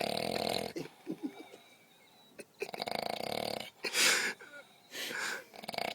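A person snoring heavily in sleep: loud, rattling snores at the start, again about two and a half seconds in and once more near the end, with a loud breathy rush of air about four seconds in.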